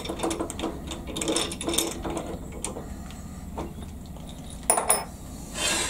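Chuck key turning in a pillar drill's keyed chuck to tighten in a drill bit: a run of quick metal clicks from the gear teeth, then quieter, with a sharper metal click near the end.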